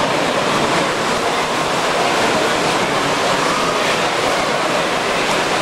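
Steady din of a busy exhibition hall: many people talking at once, mixed with model trains running on the layouts.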